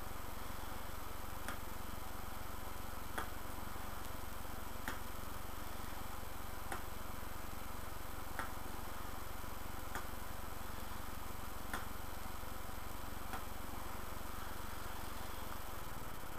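Steady low hum with a faint short tick repeating about every second and three quarters.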